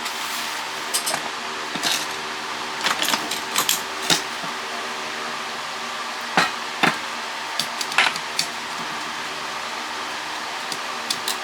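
Irregular metallic clinks and taps from hand tools and parts handled on a satellite dish LNB's aluminium housing as it is taken apart, over a steady background hum.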